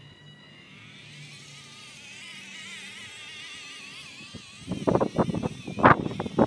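PWM-driven electric drive motors of a small homemade robot lawnmower whining faintly with a wavering pitch as it creeps across the grass. About four and a half seconds in, loud irregular buffeting on the microphone drowns them out.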